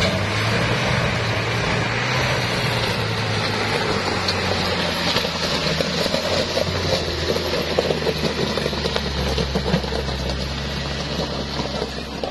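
Mitsubishi L300 pickup's engine working steadily up a steep, slippery climb, with the chained rear tyres crunching over wet stones and mud.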